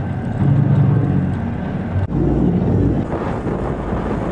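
A river boat's engine running steadily under way, with wind buffeting the microphone. The sound drops out briefly about two seconds in.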